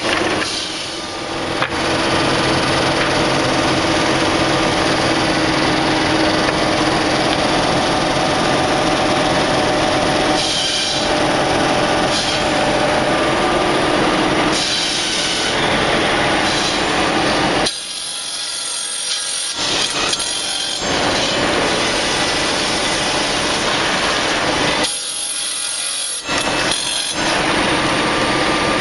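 Belt-driven stave mill machinery (stave saw and jointer) running steadily while cutting spruce barrel staves: a constant machine hum under the noise of blades going through wood. Twice in the second half the deep part of the sound drops away for a second or two while the higher cutting noise carries on.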